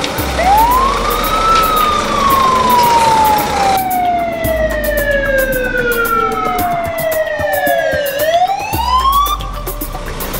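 Fire engine siren wailing: it rises quickly, falls slowly over several seconds, then rises again about eight seconds in, over the low rumble of the truck.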